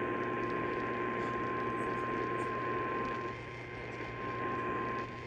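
Weather-radio warning alarm tone: one steady high tone held without a break over radio static and hum, the alert signal that comes before a National Weather Service warning message.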